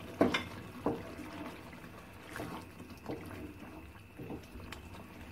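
Wooden spatula stirring thick potato gravy in an aluminium pot: wet, sloppy stirring with a few irregular knocks and scrapes against the pot, the sharpest two within the first second.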